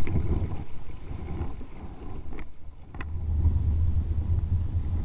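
Strong wind buffeting the camera microphone, a deep rumble that eases for a moment about two and a half seconds in and then comes back stronger, over the rush of a fast river. A couple of light clicks sound near the lull.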